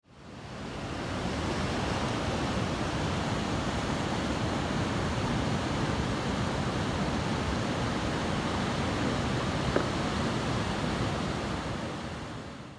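Ocean surf breaking on a beach: a steady wash of waves that fades in at the start and out near the end, with one brief click about ten seconds in.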